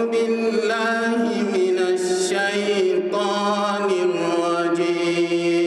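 Melodic Quran recitation in Arabic: a single voice holding long, drawn-out notes with slow glides between pitches.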